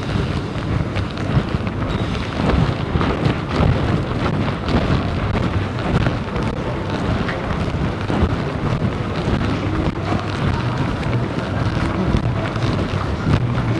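Busy indoor shopping-mall concourse ambience: a steady wash of crowd noise and footsteps, with no single clear source standing out.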